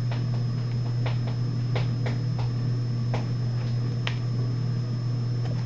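Pokémon trading cards handled by hand: a scattering of light, irregular clicks and slides of card stock as one card is moved aside for the next, over a steady low hum.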